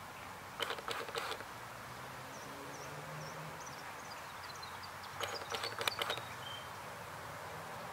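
Outdoor background noise with small birds chirping faintly: a run of quick, high, falling chirps in the middle. Two short clusters of sharp clicks stand out, about a second in and again about five seconds in.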